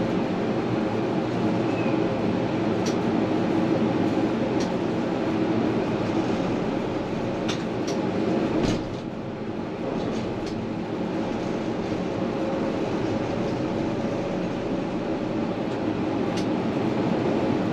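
Tram running along its rails, heard from the front of the car: a steady hum of motors and wheels with a few light clicks. A brief thump comes a little under halfway through, after which the running noise is a little quieter for a moment.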